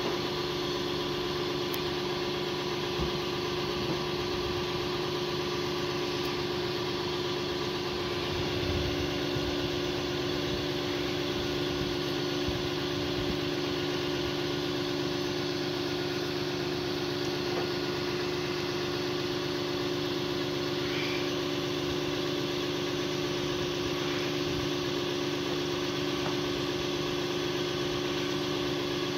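Tow truck's engine idling steadily, with a constant droning hum.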